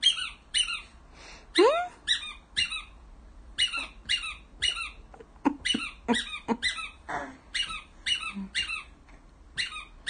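A squeaky rubber baby toy squeezed over and over, about two short squeaks a second, with a baby laughing a few times in the middle.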